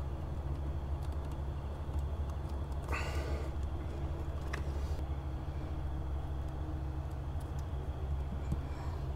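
Steady low background hum, with faint handling noises and a brief rustle about three seconds in.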